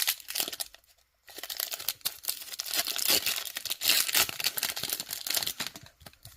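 Foil booster pack wrapper crinkling and tearing as it is opened, with a short pause about a second in.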